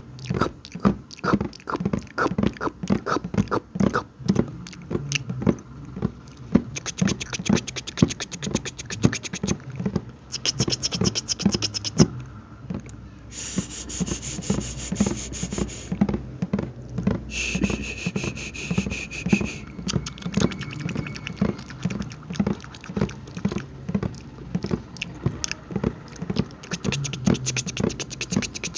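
ASMR mouth sounds close to the microphone: a rapid, continuous run of wet clicks and smacks, several a second, with brief stretches of breathy hiss in the middle.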